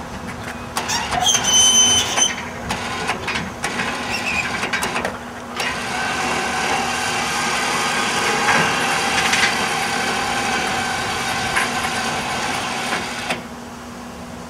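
Metal clicks and clanks with a brief high squeal, then the winch motor of a truck-bed motorcycle lift runs steadily for about eight seconds, lowering the lift, and stops abruptly.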